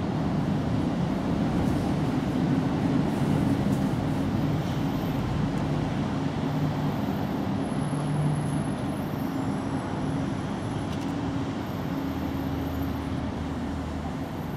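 Steady low mechanical hum with a few low tones that shift slightly in pitch, like engine or traffic noise in the background.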